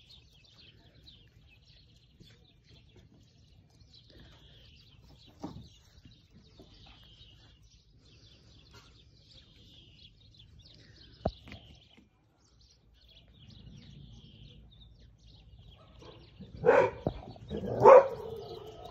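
Faint bird chirping throughout, then two loud puppy barks close together near the end, the second the louder.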